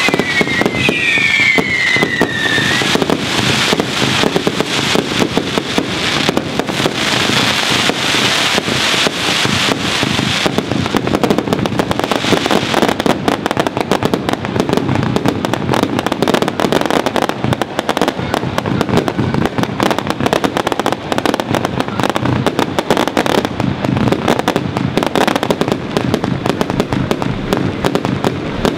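Fireworks finale: shots and bursts firing in rapid, unbroken succession, with a few falling whistles in the first three seconds.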